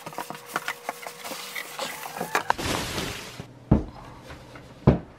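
Cardboard and plastic packaging rustling and crackling with many small clicks as a boxed subwoofer is handled and lifted out of its carton, followed by two dull thumps in the second half as it is knocked and set down.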